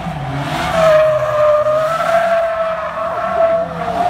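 Polaris Slingshot three-wheeler sliding through tight turns: a steady high squeal from its spinning rear tyre over the engine's drone, which rises and falls as the throttle is worked.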